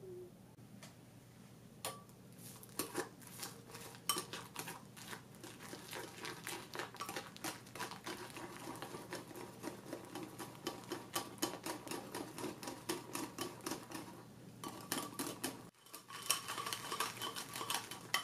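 Wire balloon whisk beating a thick cream in a glass bowl: rapid, rhythmic clicking and scraping of the wires against the glass. It starts about two seconds in, breaks off briefly near the end, then resumes.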